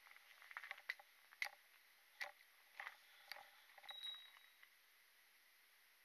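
Faint footsteps on a dry-leaf-covered dirt forest path: irregular soft crunches and clicks about every half second to second, stopping after about four and a half seconds.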